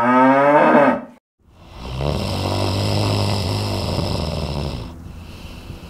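A person snoring loudly: a short snore rising in pitch, a brief silent pause, then a long, rough snore of about three seconds that stops near the end, leaving a quieter steady background.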